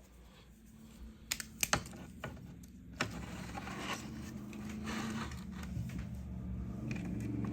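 A few sharp metallic clicks and clinks of hand tools being picked up and handled, with a low steady hum slowly growing louder underneath.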